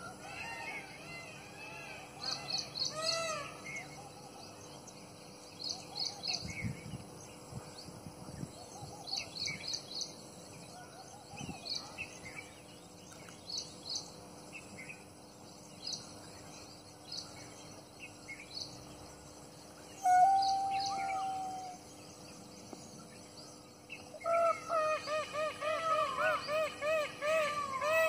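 Outdoor birdsong: small birds chirp in quick clusters, while a louder bird gives one long held call about two-thirds of the way through and then a rapid series of repeated calls, about three a second, near the end.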